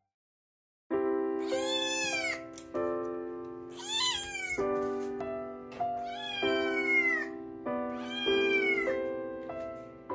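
Cat meowing four times, about every two seconds, over background music with soft sustained chords, starting after about a second of silence.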